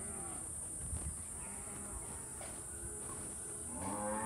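A cow mooing: one long, steady call that starts near the end, over a constant high-pitched insect drone.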